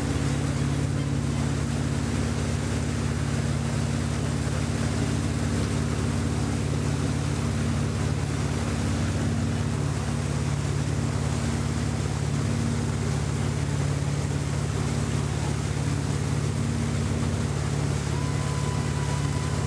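Towing motorboat's engine running steadily at speed, a constant low hum, under a continuous rush of water and wind noise.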